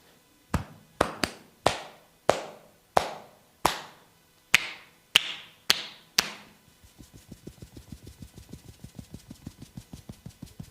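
Percussive massage strokes, a masseur's hands striking the body: about eleven loud slaps at roughly half-second intervals, then from about seven seconds in a quick, lighter tapping at about five strikes a second.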